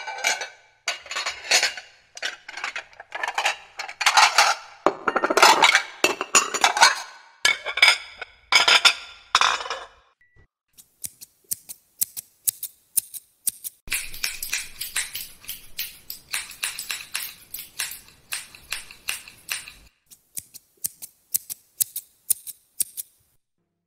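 Plates and dishes clattering and clinking against each other for about ten seconds. After a short tone, a different sound follows: rapid, crisp high-pitched ticks, with a scratchy rustle in the middle.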